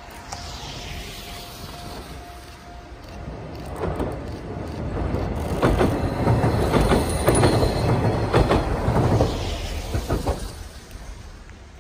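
Two-car KiHa 48 diesel railcar train approaching and passing close by on a steel bridge: diesel engines running and wheels clicking over the rail joints, loudest about halfway through as it passes, then fading away.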